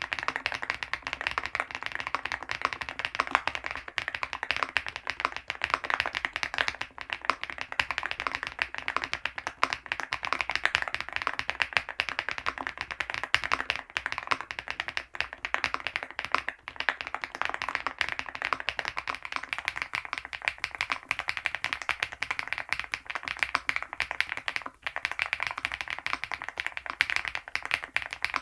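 Typing on an MCHOSE GX87 tenkeyless mechanical keyboard: a dense, steady stream of keystrokes without pause.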